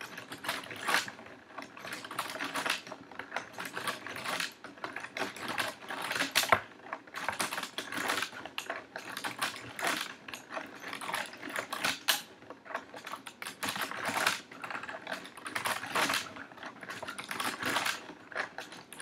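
A mostly 3D-printed plastic mechanical computer clattering as it is worked by hand: irregular clusters of quick plastic clicks and clacks, with one louder knock about six and a half seconds in. The machine is stepping through its four-instruction Fibonacci program.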